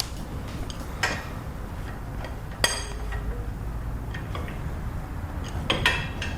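Hand tools clinking on metal while brake caliper mounting bolts are undone: a few separate sharp clinks, one ringing strike about two and a half seconds in and a quick pair near the end.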